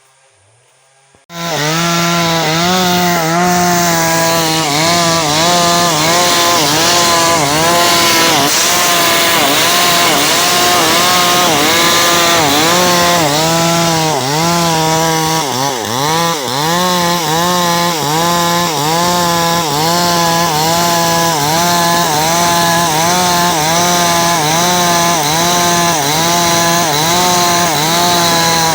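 Chainsaw cutting timber, starting suddenly about a second in and running loud, its engine pitch dipping and recovering about one and a half times a second as it bites into the wood.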